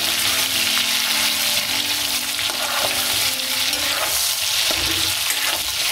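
Pieces of chicken frying in hot ghee in a metal karahi, sizzling steadily, while a metal spoon scrapes and turns them against the pan.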